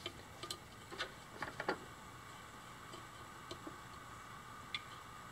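Faint, scattered clicks and ticks of small parts being handled on a partly disassembled old electric boat motor, a quick cluster about a second in and a couple of single clicks later.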